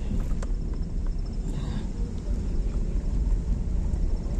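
Car in motion, a steady low rumble of engine and tyres heard from inside the cabin, with a few light knocks.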